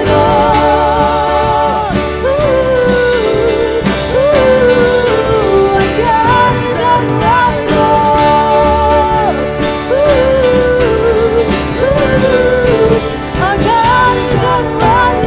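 Live worship band music: a woman sings lead with long held notes and vibrato over stage keyboard and drums.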